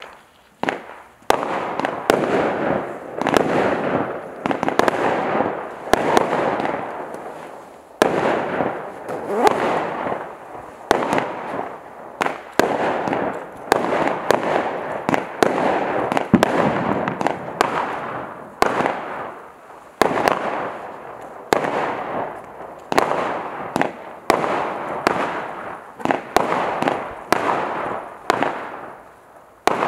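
Celtic Fireworks Golden Glory, a 30-shot 16 mm firework cake, firing a shot about every second. Each shot is followed by a noisy tail that dies away within a second or two.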